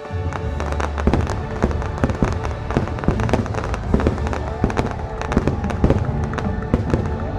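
A fast barrage of fireworks going off, several sharp bangs a second over a low rumble, starting abruptly, with the show's music playing underneath.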